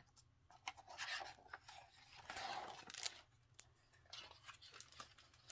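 Faint handling of a hardcover picture book as its page is turned: soft paper rustling and light clicks and taps, busiest about halfway through.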